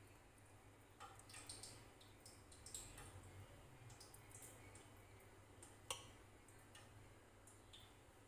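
Near silence with faint clicks and light scraping from a spoon spreading shredded chicken filling onto a round of bread, and one sharper click about six seconds in. A faint steady low hum underneath.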